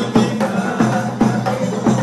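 Issawa Sufi ensemble playing live: frame drums and small hand drums beat a steady, driving rhythm under a melody.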